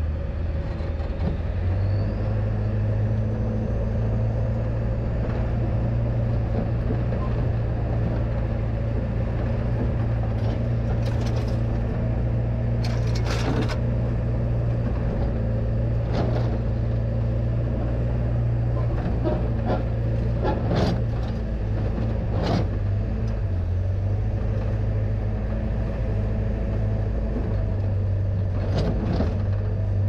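Pickup truck engine running at a steady low drone while driving slowly over a rough dirt trail, with a few sharp knocks and creaks as the truck rides over bumps.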